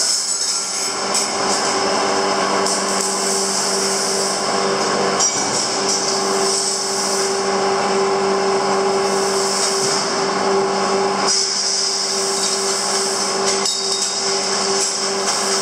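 Electric arc welding of 8 mm round steel rods: a steady crackling hiss in several runs, broken by short pauses between welds.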